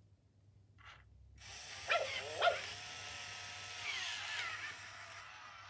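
MGA Georgie robotic plush puppy's built-in speaker playing recorded puppy sounds over a steady electronic hiss: two quick yips about two seconds in, then a longer falling cry around four seconds.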